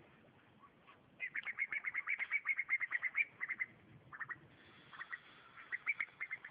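A bird calling: a fast run of sharp repeated notes, about eight a second, for a couple of seconds, then a few shorter bursts of the same notes.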